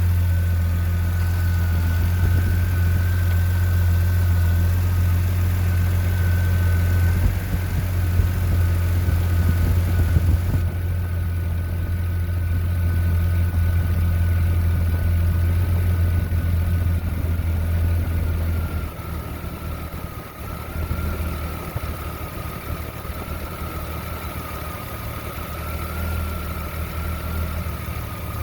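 Jeep Comanche's 4.7-litre stroker inline-six engine idling roughly, with a thin steady whine above the engine note. The sound drops somewhat in level about two-thirds of the way through.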